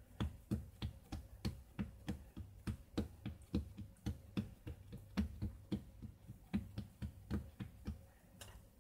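Hands patting and pressing a ball of cookie dough flat on a marble countertop: a steady run of soft pats, about three a second, stopping shortly before the end.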